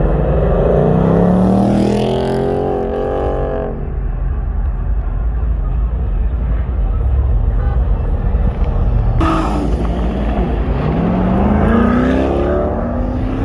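Car engines accelerating hard, their pitch climbing, once at the start and again near the end, with steady engine noise between.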